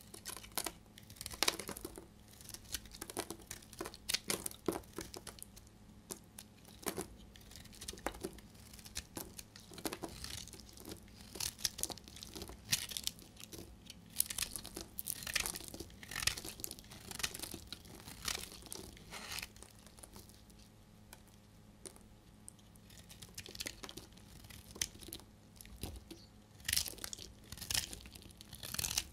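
Utility knife blade shaving a dried bar of soap: a continuous, irregular run of short crisp scrapes and crackles as brittle flakes break away.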